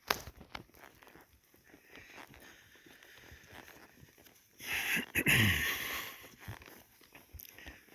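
A horse blowing a long breathy snort out through its nostrils, about halfway through, with a low tone sliding down under it. A sharp click at the very start, then faint rustling.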